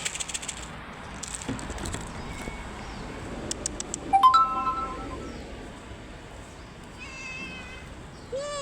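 Cat meowing a few times: a loud call about four seconds in, a fainter one about three seconds later and a wavering one near the end. Crackly clicks and rustling come in the first two seconds.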